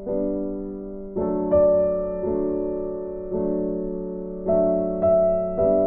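Background music: slow, soft piano chords, a new chord or note struck about once a second and left to ring and fade.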